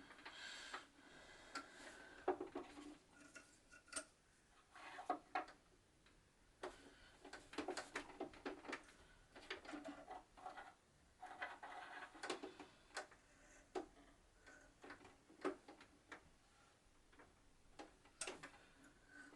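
Irregular light clicks, taps and clatter of small hard sewing machine parts being handled.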